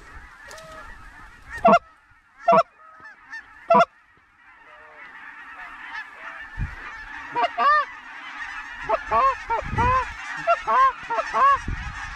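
A flock of lesser Canada geese honking and cackling as they come in. Three loud single honks come close by in the first few seconds, then a dense chorus of many birds builds and grows louder from about halfway.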